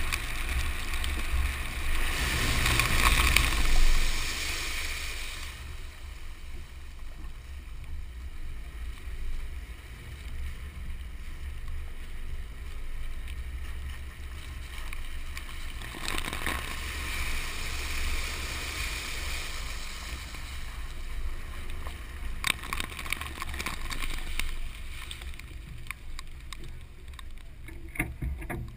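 Ford F-150's tyres rolling over wet, puddled asphalt, a steady hiss of spray over low road and wind rumble, heard from a camera mounted on the truck's side beside the front wheel. The splashing swells a couple of seconds in and again about halfway, and a few sharp ticks come near the end.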